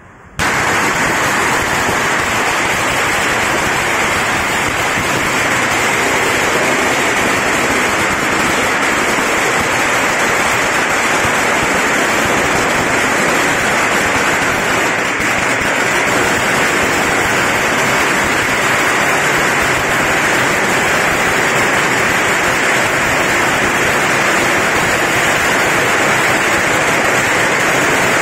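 A long string of firecrackers going off in one dense, continuous crackle. It starts suddenly about half a second in and keeps up without a break.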